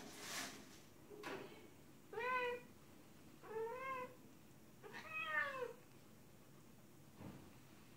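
Calico female cat in heat mate-calling: three drawn-out meows about a second and a half apart, each rising then falling in pitch.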